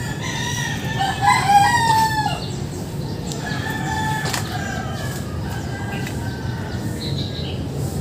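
A rooster crowing: one long crow of about two seconds that drops in pitch at the end, then a fainter second crow a second later, over steady low background noise.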